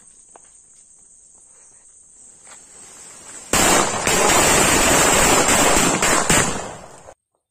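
A ring of bijli firecrackers on a trail of black powder goes off about three and a half seconds in: the powder flares and the crackers burst in a loud, dense, unbroken crackle with a few sharper bangs, lasting about three and a half seconds before cutting off abruptly.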